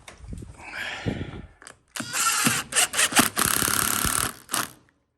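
Cordless drill-driver running in short bursts, driving screws while a nightlatch is fitted, after a couple of seconds of handling and rattling.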